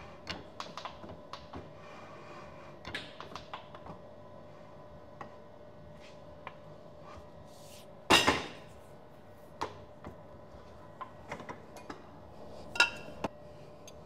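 Light metallic clicks and taps from a hand-operated fly press and steel spindle parts being handled, with a loud clank about eight seconds in and another near the end, over a faint steady hum.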